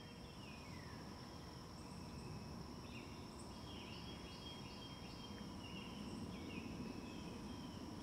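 Faint outdoor ambience: a steady high insect drone with scattered short bird calls over a low background rumble.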